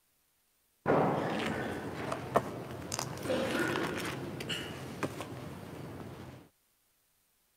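Rustling and handling noise close to the ambo microphone, with a few sharp clicks and knocks, as a book or papers are moved at the lectern. It starts abruptly and cuts off suddenly.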